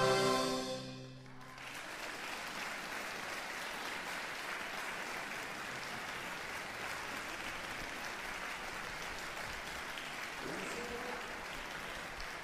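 The final held chord of a concert wind band dies away about a second in, then the audience applauds steadily.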